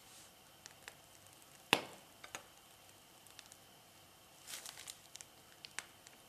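Soft crinkling and squishing of a disposable plastic piping bag as cream is squeezed out, with scattered faint ticks and one sharp click a little under two seconds in.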